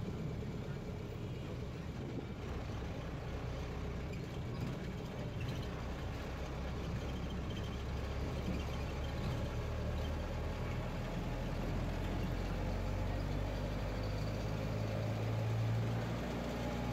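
Steady engine and road noise of a moving vehicle, with the engine note rising a little near the end as it picks up speed.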